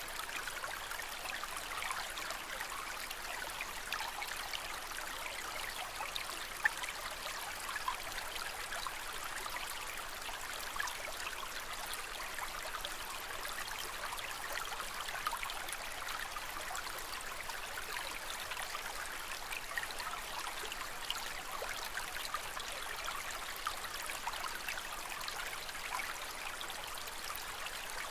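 Aquarium water trickling and splashing steadily, with many small drips and bubble pops and one sharper plip about seven seconds in.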